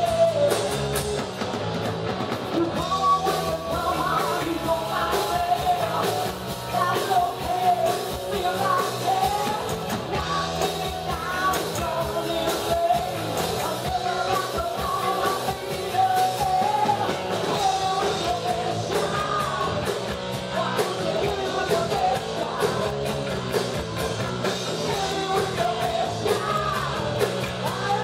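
Live rock band playing: a woman sings lead into a microphone over electric guitar, bass guitar and a drum kit.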